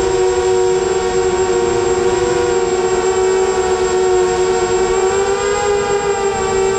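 FPV quadcopter's electric motors and propellers whining steadily in flight, heard from the drone's onboard camera, the pitch rising a little about five seconds in as the throttle changes.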